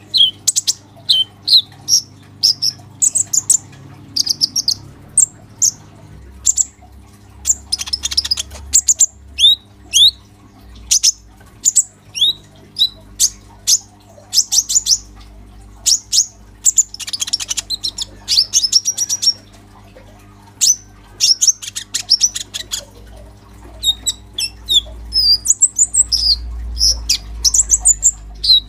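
Caged male purple-throated sunbird ('kolibri ninja') singing non-stop: rapid, thin, high chirps and twittering phrases, with a few longer stretches of dense twittering.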